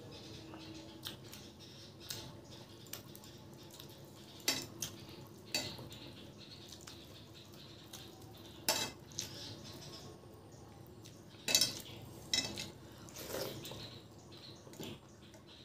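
Fingers mixing rice with runny dal on a stainless steel plate: soft wet squishing with a scattering of sharp clinks and scrapes against the metal, the loudest about two-thirds of the way through.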